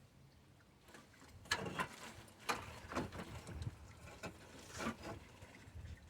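Handling noises from work on the car: a series of irregular knocks and scrapes, starting about a second and a half in.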